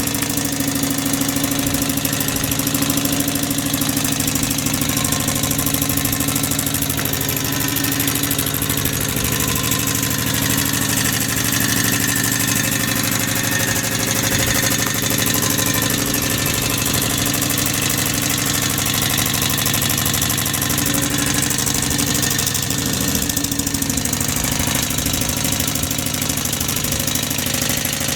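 Refrigerator compressor converted into a small steam engine, running steadily with a rapid knocking beat and a hiss across the top.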